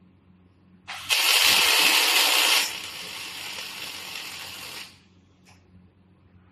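Welding arc of an automatic scaffolding-crossbar welding machine, a steady sizzling hiss as the torch welds the end of the crossbar. It starts about a second in, runs loud for a second and a half, drops to a lower level, and cuts off about five seconds in.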